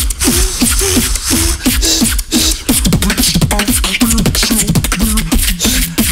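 Two beatboxers performing a tag-team drum-and-bass beatbox: a fast beat of sharp mouth-made kicks, snares and hi-hat clicks over a pitched vocal bass that slides down in pitch again and again.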